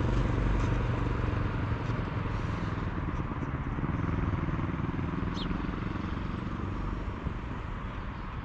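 A motor vehicle's engine running steadily with a low hum, slowly fading. About five seconds in comes a brief, high, falling chirp.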